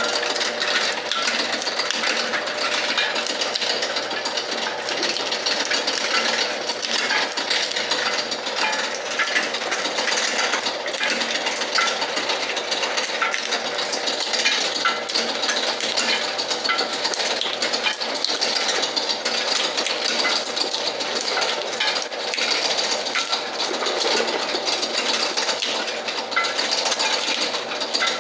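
Cashew-shelling machine running, its spring-loaded cutter blades on chain-driven rollers splitting raw cashew shells in a steady, dense clatter of rapid clicks and knocks.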